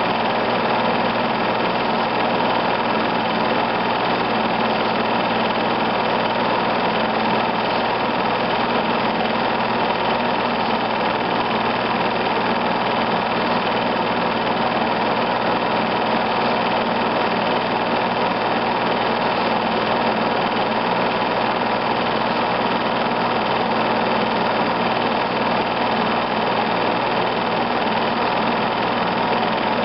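A film projector running: a steady mechanical whir with a constant hum that does not vary.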